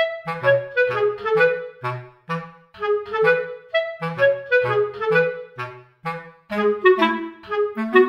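Background music: a bouncy melody of short pitched notes, in the manner of a clarinet, over a low bass line, about two to three notes a second.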